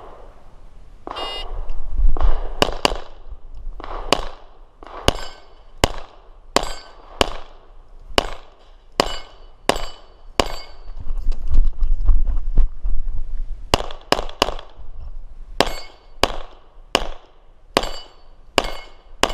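Glock 34 9 mm pistol firing a long string of some two dozen shots, irregularly spaced and often in quick pairs, during a timed practical-shooting stage run.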